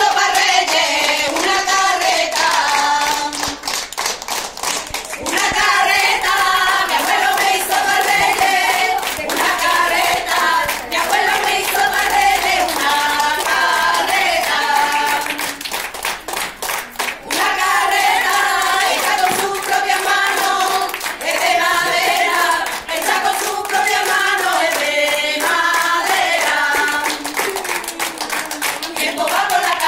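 A group of children and women singing a song together, clapping their hands along with it. The song goes in phrases with short breaks between them.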